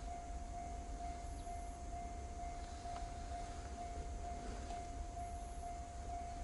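Railroad crossing alarm ringing, one steady tone repeating evenly, over a low rumble.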